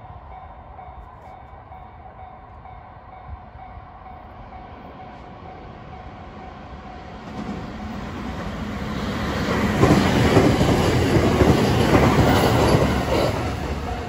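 A 521-series electric multiple unit approaches and runs past, growing louder from about halfway through, with the wheels clattering over the rail joints at its loudest and then easing off near the end. Under it a level-crossing warning signal rings on one steady tone.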